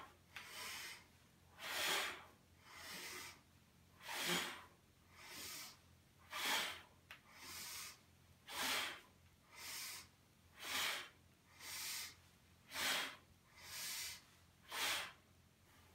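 A man breathing audibly through a Pilates Double Leg Stretch: paced breaths about one a second, alternating a softer breath with a louder one over seven cycles. He breathes in as the arms and legs stretch out and breathes out as the knees come back in.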